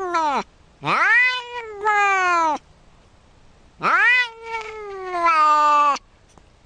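Grey Scottish Fold cat meowing: the end of one meow at the start, then a long, drawn-out meow about a second in and a longer one about four seconds in, each sliding down in pitch.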